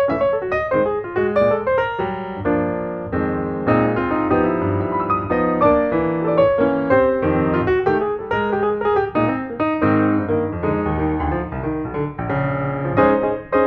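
Piano music, a continuous run of notes.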